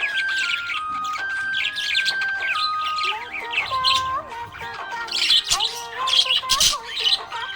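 Budgerigar chirping in quick, busy runs over background music with a simple held melody.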